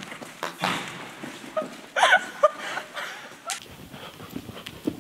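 Horse's hooves thudding on soft arena footing as it bucks and canters, with a brief high, wavering cry about two seconds in.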